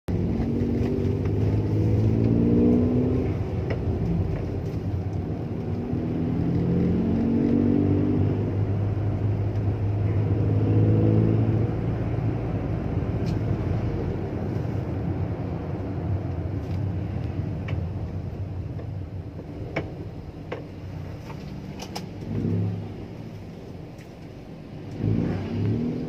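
Toyota Wigo's engine accelerating with a low rumble, rising in pitch three times in the first twelve seconds. It then runs quieter and steady, with a few light clicks and knocks in the second half.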